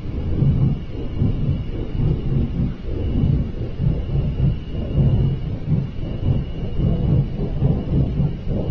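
A deep, continuous rumbling roar that swells and fades irregularly without stopping. It is the unexplained noise being recorded, which sounds to the person filming like a giant flame.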